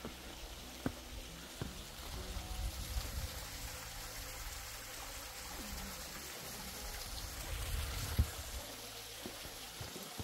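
Water trickling and running in a small stream: a steady rushing hiss. A low rumble swells twice, and a few sharp knocks sound, the loudest about eight seconds in.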